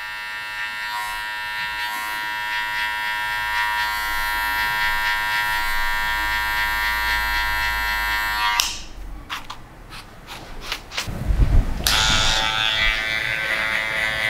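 Electric hair clippers buzzing steadily as they cut a fade. They stop about eight and a half seconds in, with a few clicks and knocks, and about twelve seconds in another clipper starts buzzing.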